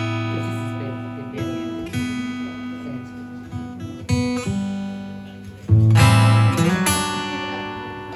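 Acoustic guitar strumming chords and letting each one ring out, a new chord every second or two. The loudest strum comes near six seconds in, and the sound fades toward the end.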